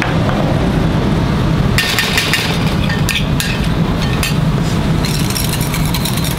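Metal utensils clinking against small stainless-steel saucepans: scattered taps of a spoon, then, about five seconds in, a wire whisk beating béarnaise sauce with rapid clicks against the side of the pan, all over a steady low hum.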